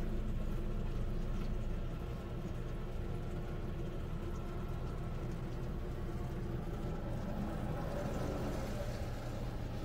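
Water spattering and running over a car in an automatic car wash, heard from inside the cabin, as a steady hiss over a low machinery hum.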